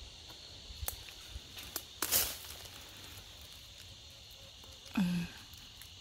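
Light rustling and footsteps in dry undergrowth: a few faint clicks, then a short rustle of leaves a little after two seconds in, over a steady high insect chorus. Near the end a brief low voice sound, falling in pitch.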